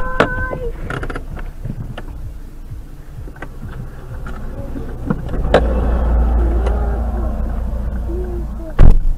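Dashcam audio inside a car just after a crash ahead: a short steady tone at the start, then low rumble with scattered clicks, the rumble growing stronger about halfway through, and one loud thump near the end.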